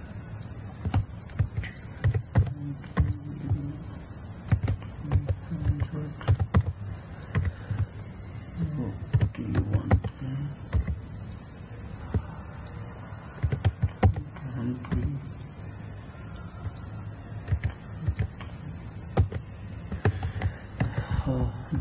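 Typing on a computer keyboard: irregular keystrokes in short runs, with pauses between them.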